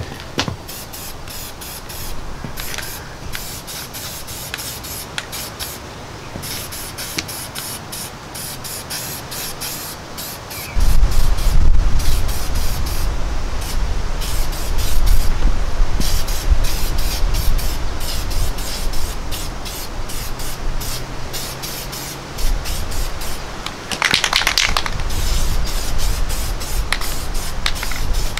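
Aerosol can of rust converter hissing as it is sprayed in many short bursts onto a bare steel rear axle housing. A loud low rumble sets in suddenly about eleven seconds in and runs under the spraying.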